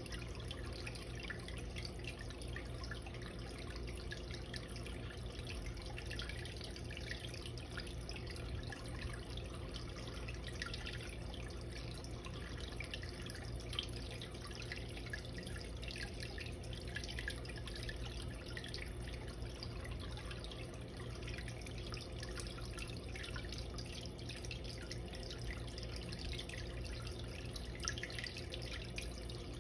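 Water in an indoor turtle tank trickling and dripping steadily, with many small splashes and bubbles, over a low steady hum.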